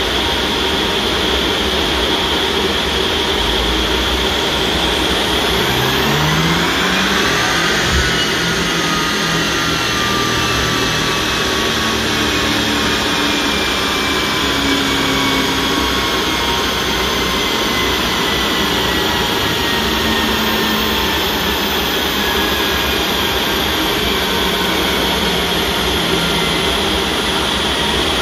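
Mk7 VW Golf R with its 2.0-litre turbo four running on a rolling road, under a loud steady rush of fan-like noise. About six seconds in, a whine climbs sharply for a couple of seconds, then slowly falls away over the next twenty seconds as the car and rollers run down after the pull.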